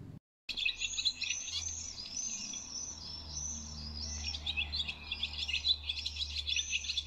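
A chorus of many small birds chirping and singing, a dense stream of quick high chirps, with a low steady hum underneath. It starts abruptly about half a second in, after a moment of silence.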